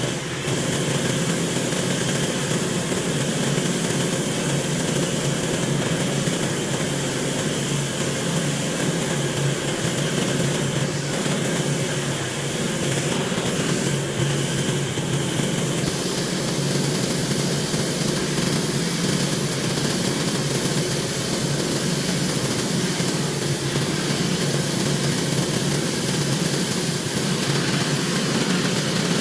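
Pressure washer running steadily, a constant engine-and-pump drone with a hiss of noise over it.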